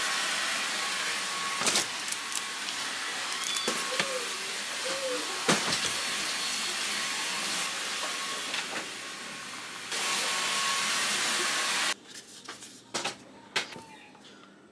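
A steady rushing hiss with scattered clicks and crinkles of plastic blister packs being handled. The hiss cuts off abruptly about twelve seconds in, leaving only the handling clicks.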